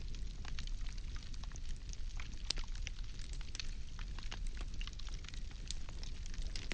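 Wood fire burning, with frequent irregular crackles and pops from the burning logs over a steady low rumble.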